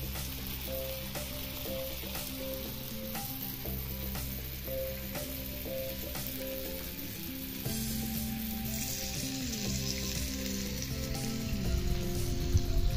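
Fish pieces sizzling as they fry in oil in a flat pan, a steady crackling hiss, with background music playing over it.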